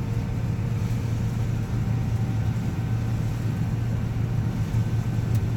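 Combine harvester running steadily under harvest load, a constant low drone with a faint steady whine above it, heard from inside the operator's cab.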